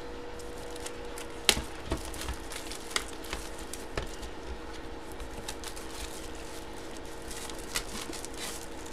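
Paper card and plastic sleeve being handled on a tabletop: soft rustling with a few sharp clicks and taps, the clearest about a second and a half in, over a faint steady hum.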